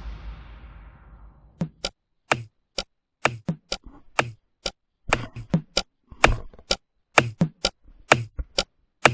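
A crash fading away over the first second or so, then an irregular run of sharp knocks, each with a dull low thud, about two a second.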